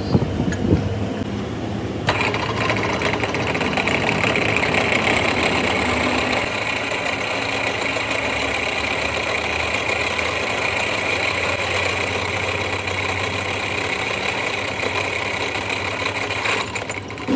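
Metalworking machinery: a steady low machine hum, joined about two seconds in by a harsh, steady hissing noise from a power tool working the iron, which stops shortly before the end.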